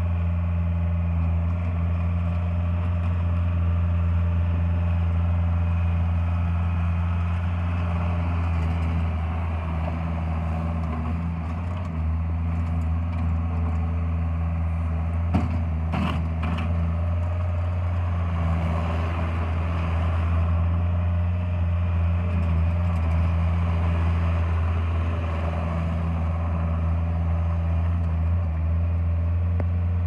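Bobcat S130 skid steer loader's diesel engine running steadily as the machine is driven, with a couple of sharp clanks about halfway through.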